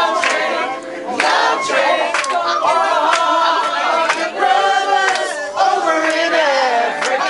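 A group of people singing and shouting together loudly, with several sharp hand claps among the voices.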